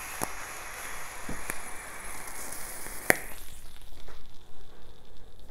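Vape coil sizzling and crackling, with a steady hiss of air drawn through the atomiser, during a long draw on an e-cigarette. The hiss ends with a sharp click about three seconds in, followed by a breathy exhale of the vapour.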